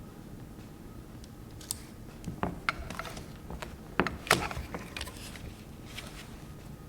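Packaging and parts being handled during the unboxing of an LED light strip: a scattered series of small clicks and rustles, with two sharper clicks about four seconds in being the loudest.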